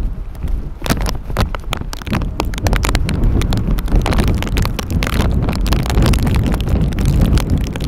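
Strong wind buffeting the microphone: a heavy, steady low rumble with many sharp crackles, getting louder after about a second.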